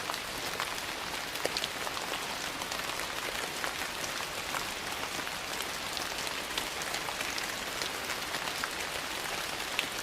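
Steady rain falling on a porch, an even hiss with scattered sharp ticks and pops throughout.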